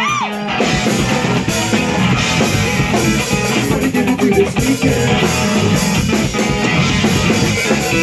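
Live rock band playing: electric guitar, electric bass and a Mapex drum kit together, loud and dense, with a short rising pitch slide right at the start.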